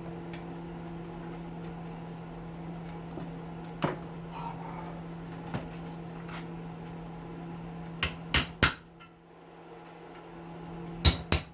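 Hammer striking a metal punch to drive a part out of a hedge trimmer's housing: one blow about four seconds in, three quick blows around eight seconds, and two more near the end. A steady low hum runs underneath.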